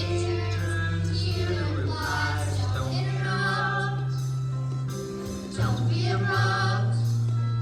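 Group singing over accompaniment music, with held bass notes that change every second or two.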